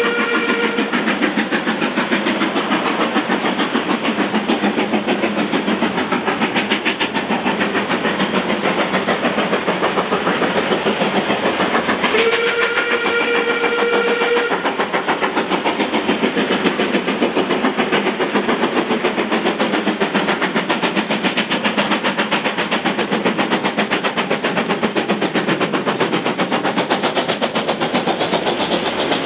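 Steam locomotive working hard, its exhaust beats coming in a fast steady rhythm. Its whistle sounds briefly at the very start and again for about two seconds around the middle.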